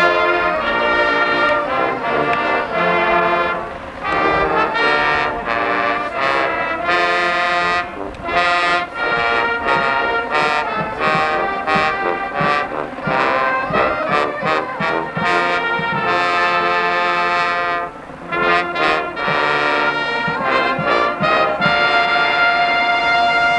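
High school marching band playing a brass-led tune: trumpets, trombones and sousaphones, with brief drops in the playing about four and eighteen seconds in.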